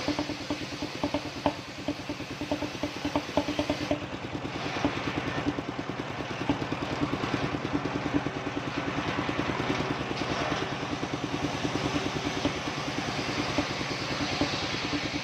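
The engine of a circular saw machine running steadily with a fast, even chugging pulse. There are a few sharp knocks in the first four seconds, and after that the sound changes character.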